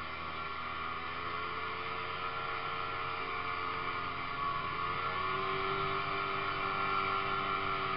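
Ski-Doo snowmobile engine running under way, its pitch wavering slightly as the throttle changes, a little louder from about halfway.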